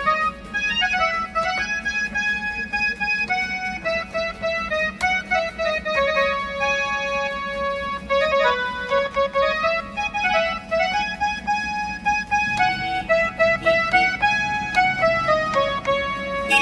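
Casio electronic keyboard played as a single-line melody of sustained notes, the keys tested after their worn pads were replaced with pieces cut from a rubber slipper.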